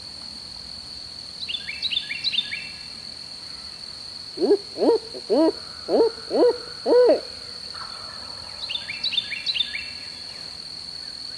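Six loud owl hoots in quick rhythm, each rising and falling, in the barred owl's hooting pattern, used as a turkey locator call to make a gobbler answer. Short bird chirps come just before and just after, over a steady high insect whine.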